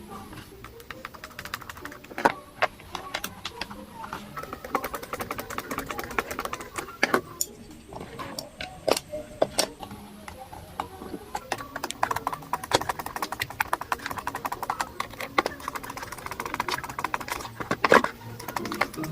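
Irregular clicks, taps and knocks of plastic and metal electric fan parts being handled and fitted together by hand.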